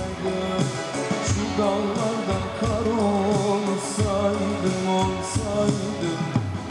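Turkish wedding band music: a voice singing a Middle Eastern-style melody over instruments with a steady beat.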